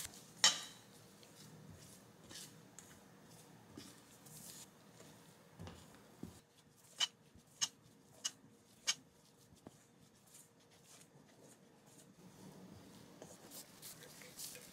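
Silicone spatula stirring dry flour in a stainless steel bowl: faint scraping and rustling, with a sharp click just after the start and four quick sharp taps, a little over half a second apart, about halfway through.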